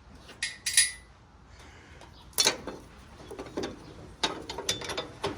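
Scattered metal clinks and knocks as the inspection cover plate is taken off a zero-turn mower; two clinks about half a second in ring briefly.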